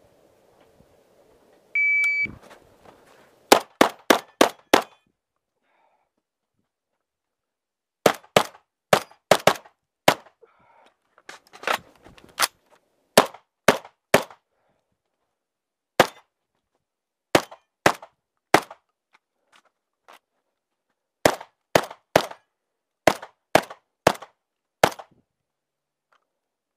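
A shot timer's start beep, then a shotgun fired close by in fast strings: a quick run of about five shots, then more strings of two to seven shots with short pauses between them, some thirty shots in all.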